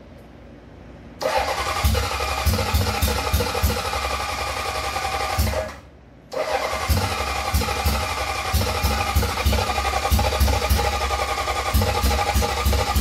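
1978 Honda CB750's four-cylinder engine being cranked over in two long goes, about four seconds and then seven, with a short break between. Steady cranking with uneven low pops as some cylinders fire. The engine does not catch and run.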